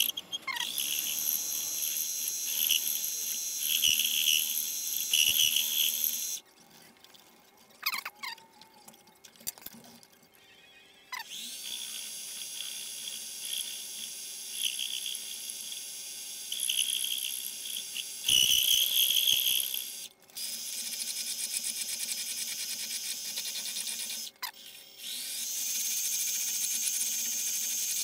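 Mini-lathe running a steel workpiece, its motor giving a steady high-pitched whine. It cuts out and starts up again several times, the whine winding up in pitch as it comes back to speed. There is a short loud burst of noise about two-thirds in.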